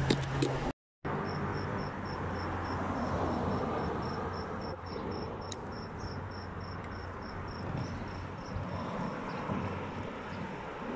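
Street noise while riding a bicycle: a steady rush and a low traffic hum, which cut out completely for a moment about a second in. Through most of it a high, even chirp repeats about four times a second, like an insect.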